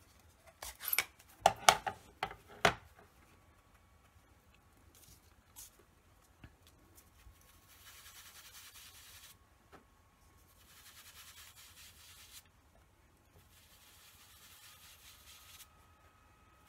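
Plastic ink pad case handled and snapped open with a quick run of sharp clicks. Then a small cut-up foam sponge is rubbed on the ink pad and dabbed onto cardstock in three soft scratchy stretches of a second or two each.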